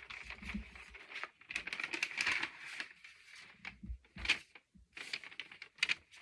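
Paper rustling and crinkling as a drawing is handled, in quick irregular bits, with one sharper tap about four seconds in.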